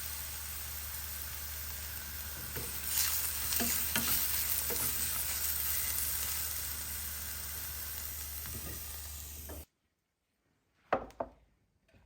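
Food sizzling in hot oil in a frying pan, with a few scrapes and taps of a utensil stirring it. The sizzling cuts off abruptly near the end, followed by a couple of light knocks.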